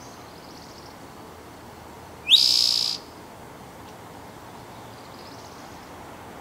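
Towhee singing a single phrase about two seconds in: a quick rising note that runs into a buzzy trill, lasting under a second. Faint, higher trilled songs of more distant birds come at the start and again near the end.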